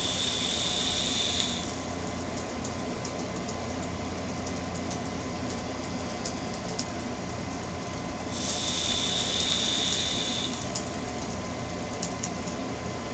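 Dual-coil Doge V1 dripping atomizer fired at 150 watts and drawn on: a hissing sizzle of e-liquid boiling on the coils with air rushing through, lasting about two seconds at the start and again about eight seconds in.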